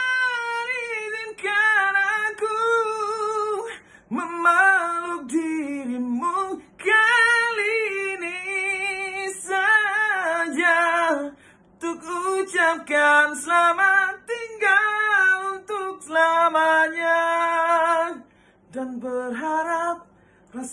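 A man singing a slow pop ballad alone, unaccompanied, in a high head voice that sounds like a woman's. He sings in phrases of a second or two, with short breaths between them.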